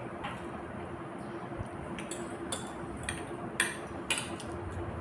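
Eating noises: a metal fork and spoon clink against a plate of noodles several times, the sharpest about three and a half seconds in, over a faint steady hum.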